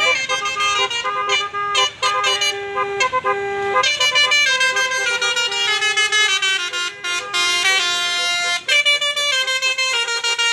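Bus telolet horn of the basuri kind playing a tune: a continuous string of loud musical horn notes that step from pitch to pitch, with a few falling glides in the middle.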